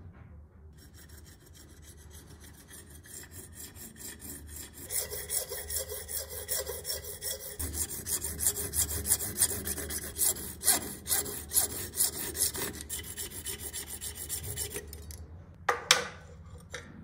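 Thin hand-held saw blade rasping back and forth across a brass rod held in a vise, cutting a notch, in rapid strokes that grow louder about five seconds in. Two sharper scrapes come near the end.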